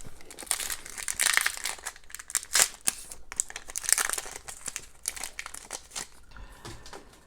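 Foil wrapper of a 2020-21 Upper Deck MVP hockey card pack crinkling and tearing as it is opened, in irregular rustling bursts.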